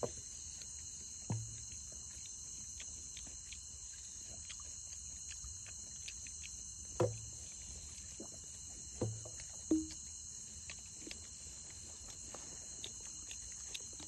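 Steady chorus of crickets and other night insects, high-pitched and continuous. A few brief low sounds from the group break in: about a second in, about seven seconds in (the loudest) and twice around nine to ten seconds. Faint ticks run underneath.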